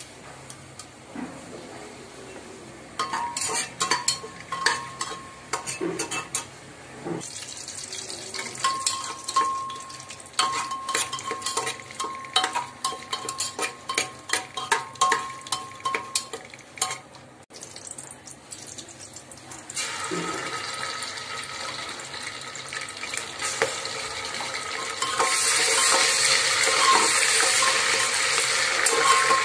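Metal spoon clinking and scraping against an aluminium pressure cooker as spices and paste are stirred in hot ghee, each knock with a short metallic ring. From about two-thirds of the way through, the frying sizzle grows into a loud steady hiss, with the spoon still knocking the pot.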